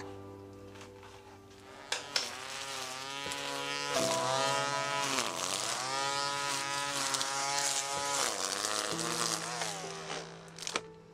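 A string trimmer's motor whining, its pitch sagging and rising again in the middle, over sustained low music chords. The trimmer comes in about two seconds in and stops after about eight seconds.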